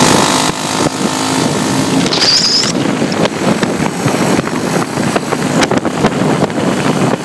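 Wind buffeting the microphone and road noise while travelling fast along a highway, a vehicle's engine running under the rush. A brief high-pitched tone sounds about two seconds in.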